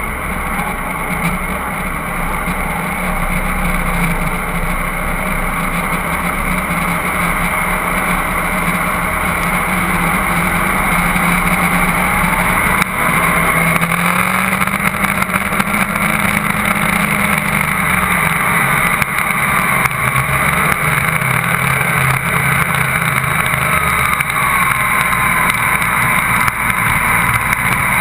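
Twin Yanmar 260 hp diesel engines of a Stirling 34 powerboat running hard under way, heard through an onboard camera with wind and rushing water. The engine note rises partway through and the whole sound grows steadily louder as the boat accelerates.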